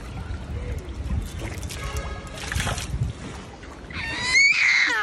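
A baby's high-pitched squeal about four seconds in, rising and then held, over a low steady rumble.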